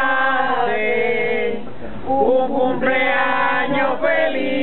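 A group of men and women singing a birthday song together, with long held notes that change pitch every second or so and a softer stretch about two seconds in.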